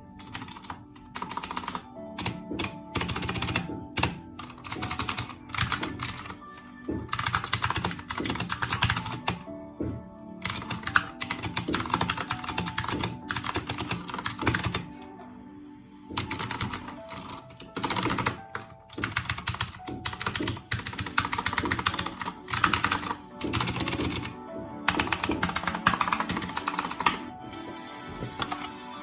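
Typing on an Akko 3068 mechanical keyboard: runs of rapid key clicks a few seconds long with short pauses between them, over background music.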